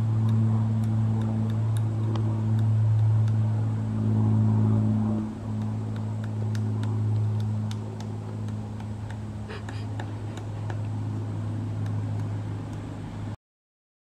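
A low, steady motor hum that swells and eases over the first five seconds, with sparse faint sharp taps from a pileated woodpecker pecking a wooden post. The sound cuts off suddenly near the end.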